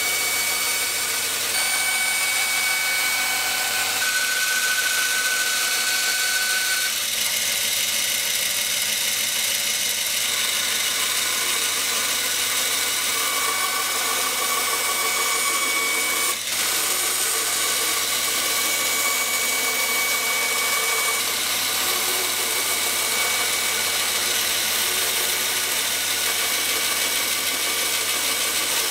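Band saw running steadily as its blade cuts through a Kydex plastic sheet, with a brief dip in the sound about halfway.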